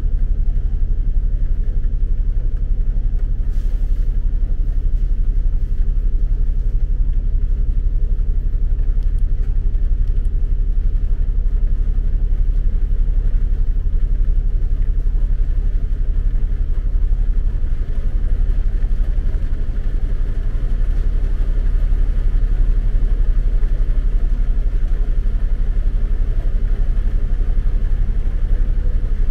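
Steady, loud low rumble of a motor vehicle's engine running, with no clear changes or separate events.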